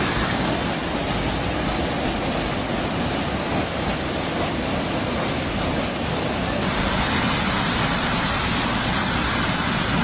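Floodwater rushing: a loud, steady roar of water, its texture changing about two-thirds of the way through.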